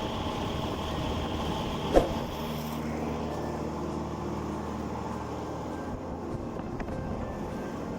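Chiller fan motor running with a steady mechanical rumble and hum from a worn bearing that makes it noisy, and a single sharp knock about two seconds in.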